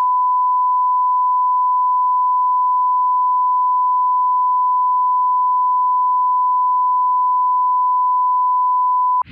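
Steady 1 kHz line-up test tone of the kind recorded at the head of a broadcast programme tape: a single unbroken pitch at constant level that cuts off suddenly near the end.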